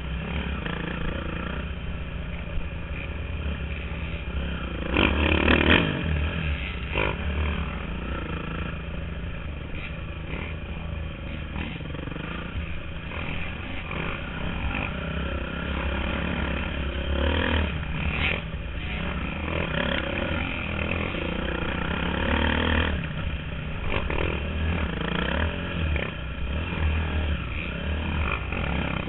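Off-road dirt bike engine running under varying throttle on a woods trail, heard from a helmet-mounted camera, with a louder stretch about five seconds in.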